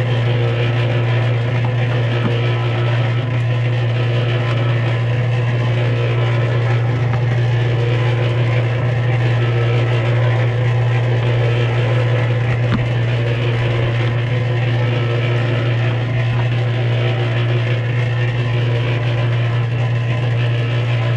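Electric motor of a Harbor Freight cement mixer running steadily with a strong, even hum as it turns a barrel trommel sifting compost.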